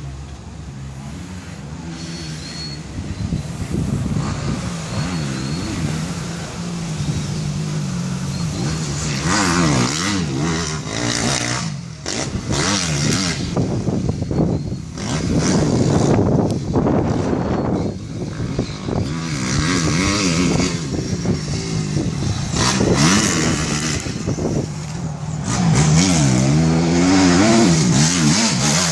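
Honda CRF250R four-stroke single-cylinder motocross engine being ridden hard, revving up and falling off again and again, louder at times and loudest near the end.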